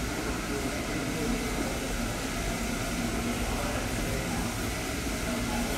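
Steady low rumble and hiss of railway platform ambience beside stationary passenger carriages.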